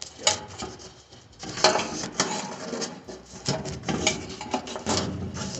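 Irregular clicks and clattering of plastic and metal parts as the old lid switch assembly's retaining clips are worked loose from a Kenmore top-load washer, with a denser rattling stretch about a second and a half in.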